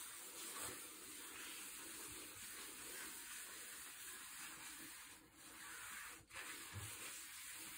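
Faint, steady rubbing of a hand wiping down a wet quartz countertop to rinse off the dish-soap film. The rubbing breaks off briefly twice, about five and six seconds in.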